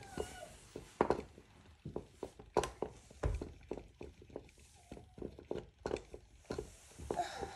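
Irregular light clicks and knocks, several a second and unevenly spaced, with a few brief faint squeaky glides among them.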